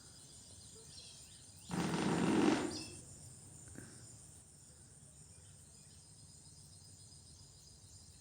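Faint room tone with a thin, steady high hiss, broken about two seconds in by one brief rush of noise lasting about a second.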